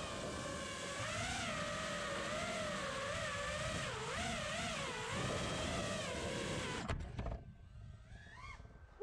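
Five-inch FPV freestyle quadcopter's 2650kV brushless motors and propellers buzzing loudly. The pitch rises and falls with the throttle as it flies low, then the sound cuts off abruptly about seven seconds in. After that it is quieter, with a few faint short rising-and-falling tones.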